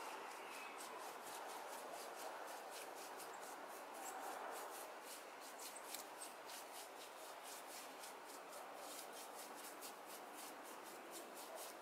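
Small hand tool scraping and carving a cement baluster in quick, short strokes, about three a second.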